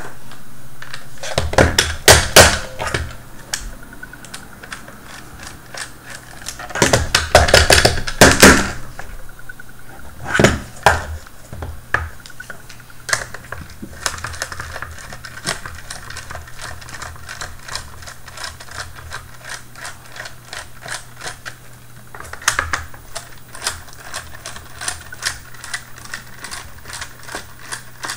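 A hard plastic robot body clattering and knocking on a wooden table as it is handled, twice in quick bursts. Then a long run of small, fairly regular clicks as a precision screwdriver backs Phillips screws out of the plastic case.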